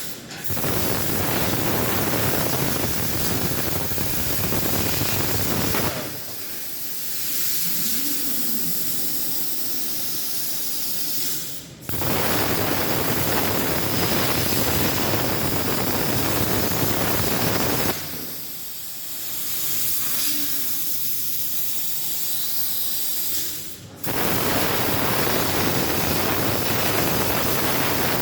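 SteelTailor Dragon III CNC plasma cutter's torch hissing loudly in spells of about six seconds, with a quieter hiss between them and a sharp break in the sound just before each loud spell starts again.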